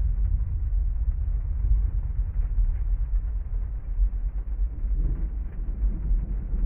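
Rain ambience heard from inside a parked car, dominated by a deep steady rumble, with a low roll of thunder building about five seconds in.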